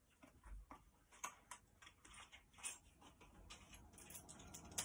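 Faint, irregular small clicks and light fabric handling at a domestic sewing machine, as a garment is adjusted under the needle by hand; no steady machine stitching.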